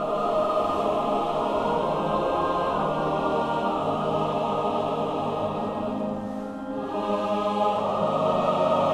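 Choir singing long held chords, dipping briefly about two-thirds of the way through and swelling again toward the end.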